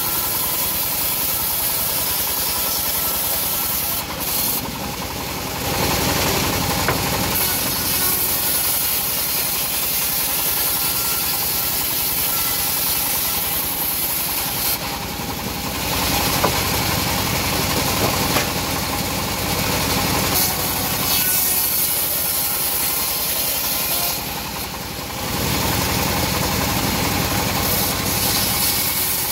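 Homemade band sawmill running steadily, its blade sawing lengthwise through a teak log. The sound drops briefly twice, about four seconds in and again near twenty-four seconds.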